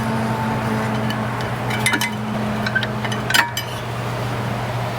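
Several light metallic clinks and taps of hand tools and brake parts being handled, the loudest about three and a half seconds in, over a steady low hum.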